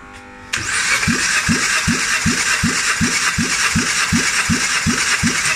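Kia Ceed 1.4 G4FA four-cylinder engine being cranked over by its starter motor for a compression test on cylinder one. It starts suddenly about half a second in, with a steady starter whine and even compression pulses about 2.7 times a second.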